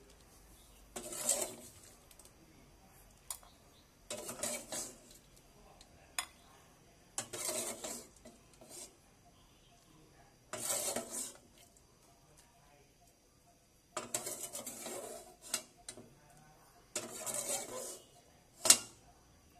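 Metal ladle scraping and clinking against an aluminium pot and a glass bowl as curry is scooped and spooned out, in short bursts every few seconds with quiet between. A single sharp clink shortly before the end is the loudest.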